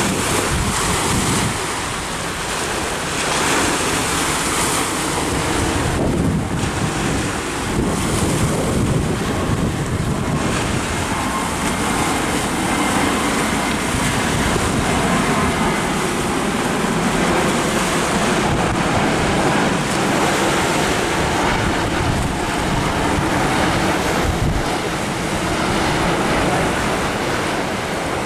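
Wind buffeting the microphone over waves washing on a beach, a steady rushing noise.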